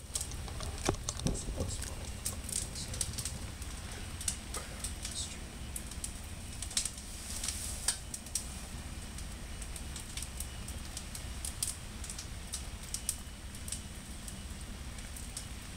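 Felt-tip marker scratching across a drawing board in short, irregular strokes, over a steady low rumble.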